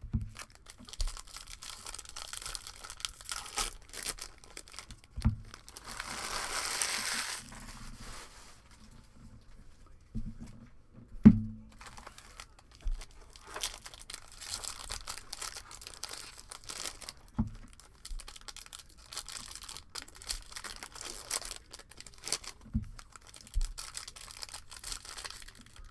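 Trading card pack wrappers being crinkled and torn open, with cards handled and shuffled. There is a longer tearing rustle about six seconds in, and several knocks on the table, the loudest about eleven seconds in.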